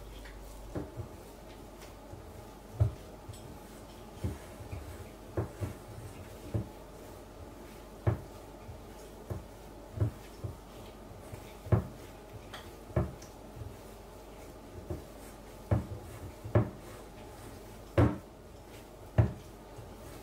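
Yeast dough kneaded by hand in a glass mixing bowl: irregular dull knocks, roughly one a second, as the dough is pressed and pushed against the bowl.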